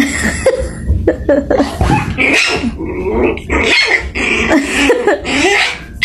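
Dog growling with short yips, a quick run of uneven calls.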